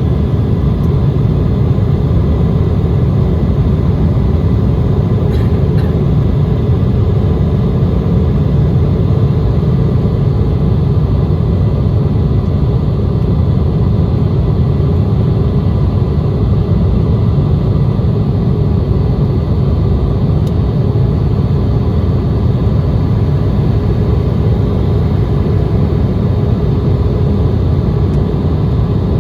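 Steady cabin noise of an Embraer 170 under power, its two General Electric CF34-8E turbofans and the airflow giving a loud, even rumble with faint steady whining tones above it.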